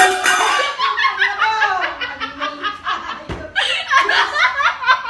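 Women laughing hard, breaking out suddenly at the start and going on in rapid, repeated bursts of laughter.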